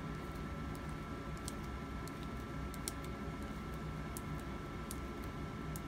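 Faint scattered clicks and scratches of a plastic wire nut being twisted by hand onto a pair of electrical wires, over a steady low hum with a faint high tone.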